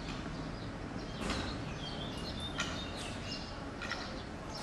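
City street traffic noise with short, high chirps and squeaks now and then, most of them from about two seconds in.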